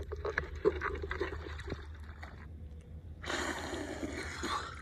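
Light clicks and scrapes from a hand-held plastic bucket of live crabs and shrimp. After a sudden cut about three seconds in, muddy water sloshes and trickles around a man crouched chest-deep in a pool.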